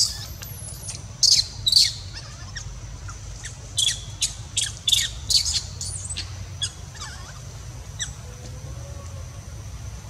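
A young macaque crying: short, sharp, high-pitched squeals in quick bunches, thickest in the first six seconds and then thinning out to a few single cries.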